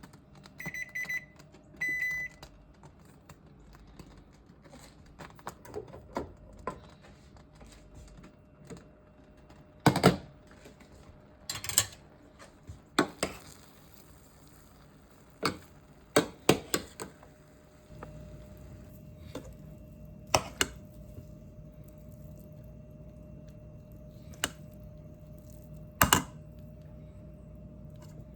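Kitchen appliance keypad beeping a few times near the start, then scattered clicks and knocks of handling. From about two-thirds of the way in, a steady low appliance hum sets in and runs on.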